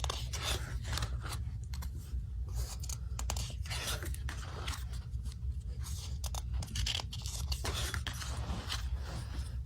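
Glossy photobook pages being turned and handled: irregular paper rustling and scraping.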